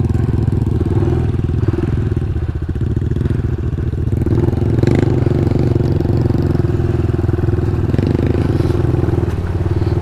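Honda CRF110 pit bike's small single-cylinder four-stroke engine running at low, steady throttle while riding through a muddy puddle. The revs dip slightly a couple of seconds in and pick up again about four seconds in.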